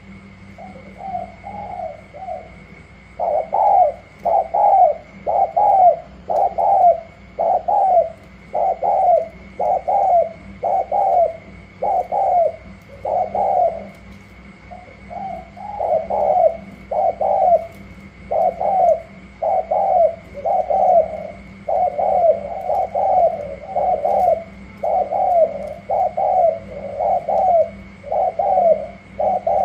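Male spotted doves bow-cooing at each other in a rapid, steady run of short coos, a little more than one a second, with a brief pause about halfway. This is the competitive cooing display of rival males.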